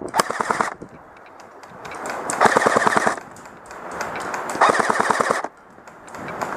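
Airsoft electric gun firing three full-auto bursts of rapid, evenly spaced clicks: a short one near the start, then two longer ones about two seconds apart.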